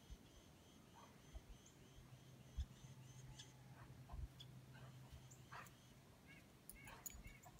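Very faint sounds of a dog plowing through deep snow: scattered small clicks and a couple of soft thumps.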